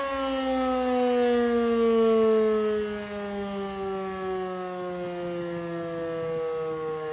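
Civil defense siren sounding in a siren test, its wailing tone gliding slowly and steadily downward in pitch.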